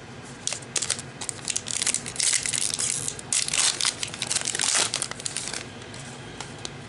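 Plastic foil wrapper of a trading-card pack crinkling and tearing as it is ripped open and the cards are pulled out. The crinkling starts about half a second in, is busiest in the middle and stops a little before the end.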